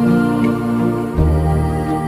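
Slow, sustained new-age style instrumental music, with held chords over a deep bass note that changes about a second in.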